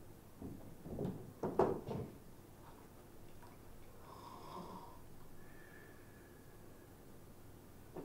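A man's voice imitating snoring for a sleeping puppet: a few loud snores in the first two seconds, then a short wheezy tone and a thin, steady whistle on the out-breath.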